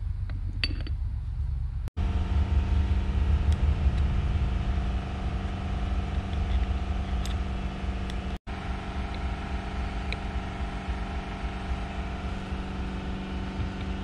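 Machinery running steadily in the background, a drone with a low rumble and a steady hum, which cuts out for an instant twice. A few light clicks of metal parts being handled sound over it.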